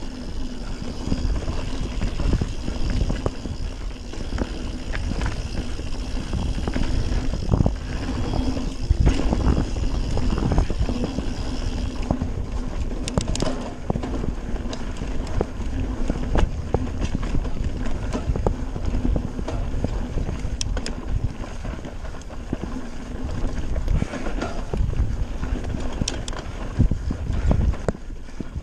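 A Radon Swoop 170 mountain bike riding fast down a dirt forest trail: tyres rumbling over the ground, with frequent short knocks and rattles from the bike over roots and bumps.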